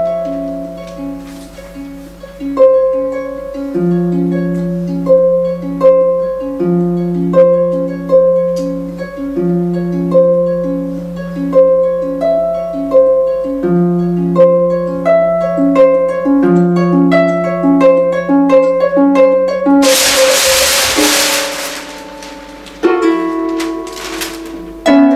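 Concert harp playing a repeating plucked figure over low bass notes. About twenty seconds in, a loud ripping of heavy paper lasting about a second and a half covers the harp, with further rustling and tearing after it.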